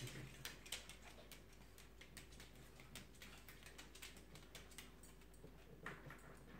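Faint, irregular clicking of a small dog's claws on a tile floor as it shuffles about, with a brief louder breathy hiss near the end.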